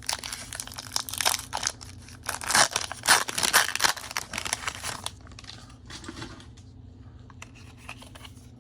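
Foil Pokémon booster pack wrapper being torn open and crinkled by hand, loudest a few seconds in, then only faint crinkles and clicks of the wrapper and cards being handled after about five seconds.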